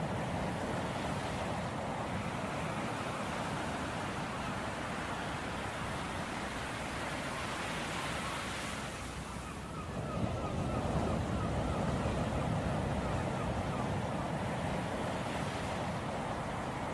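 Ocean surf washing in and out steadily. There is a brief lull about nine or ten seconds in before the next wave comes in louder.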